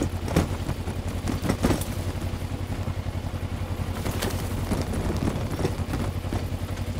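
Kawasaki Versys-X 300's parallel-twin engine running steadily on a dirt trail, with several sharp knocks and clatter as the bike goes over rough ground.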